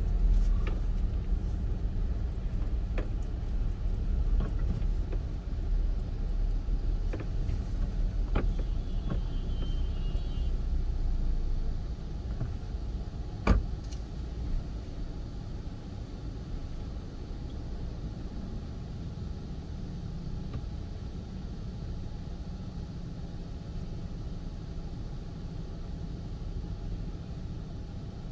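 Low rumble of a car driving on a city road, easing off about twelve seconds in as the car comes to a stop and sits idling. A faint brief beep comes around nine seconds in, and a single sharp click a little after the car stops.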